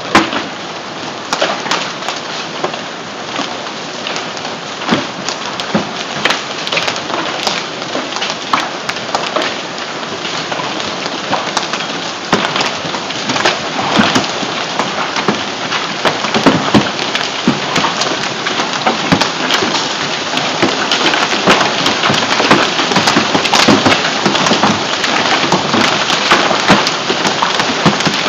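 Hail and rain pelting down: a steady rush with many sharp clicks of hailstones striking the ground and hard surfaces. It grows heavier about halfway through.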